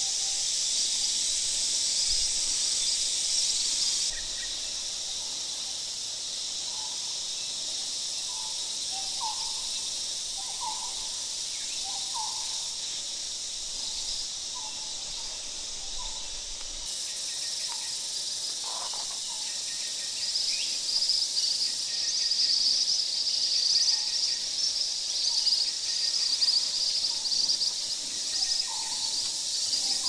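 Steady high insect buzzing, louder and pulsing in the last third, with a bird repeating short rising notes about once a second.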